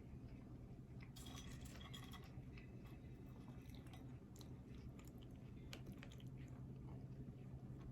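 A person chewing food close to the microphone, faint, with a burst of small crunches and wet mouth clicks about a second in and scattered clicks after.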